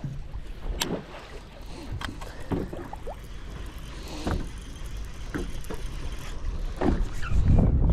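Water slapping and lapping against the hull of a bass boat in scattered small knocks, with a low wind rumble on the microphone that swells near the end.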